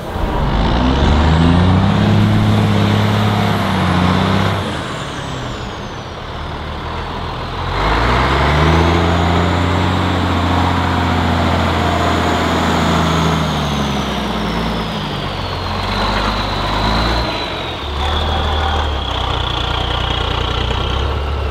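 Heavy truck diesel engine revving hard under load at a truck trial, its pitch rising and falling twice, the second time for longer, with a high whistle that rises and falls with the revs. It settles to a lower, steadier run near the end.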